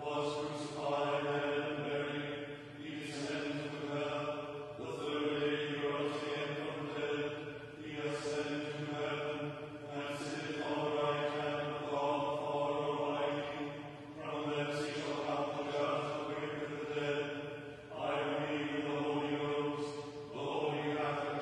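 Liturgical chanting of the Book of Common Prayer office: sung phrases held mostly on steady notes, each about two seconds long, with brief breaths between.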